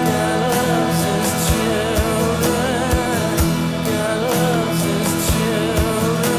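Music: a song with a drum beat and a wavering lead melody.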